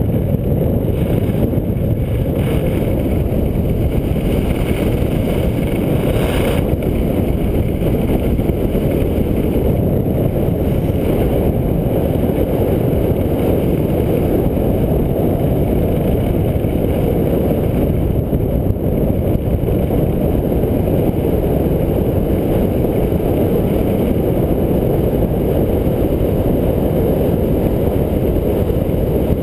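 Steady, loud wind rush and rumble on a skier's body-worn camera microphone during a fast run down a groomed piste, muffled with little treble, with the skis' scrape on the snow mixed in.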